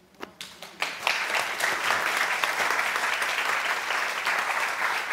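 Audience applauding: a few scattered claps at first, building within about a second into steady applause.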